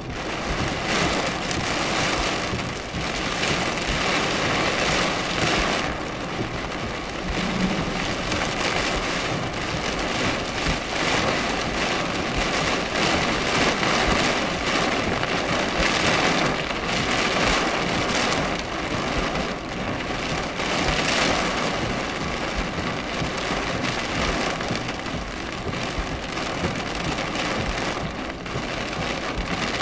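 Heavy thunderstorm downpour drumming on a car's roof and windshield: a loud, dense, steady hiss that swells and eases in uneven surges.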